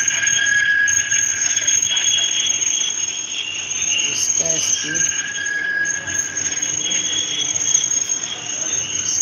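Insects trilling: several steady high-pitched tones that stop and start every second or two, with faint voices in the background.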